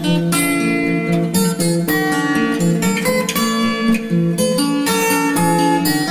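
Background music led by a plucked acoustic guitar.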